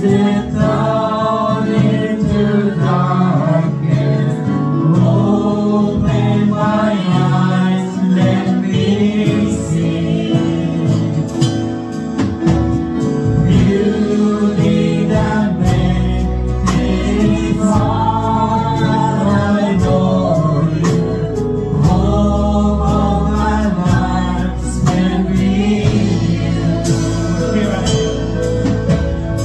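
A live worship band playing a contemporary praise song, with several voices singing over acoustic guitar, drums and keyboard. About halfway through, deep bass notes come in much stronger.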